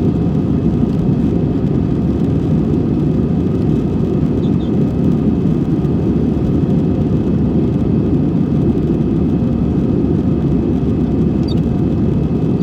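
Steady low drone inside a jet airliner's cabin in flight: engine and airflow noise, with a faint steady whine above it.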